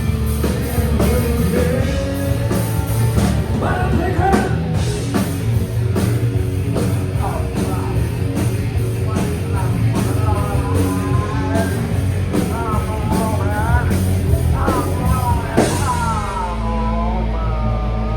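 Live grunge-style rock band playing, with a singer over drum kit and low guitar and bass. About sixteen seconds in the drums stop and a low chord is held under the voice.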